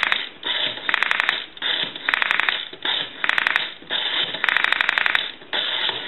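Rotary dial of a Western Electric 202 desk telephone being dialed digit by digit. About once a second the dial is wound and let go, and each spin back sends a quick, even train of clicks: the dial pulses of a number being dialed.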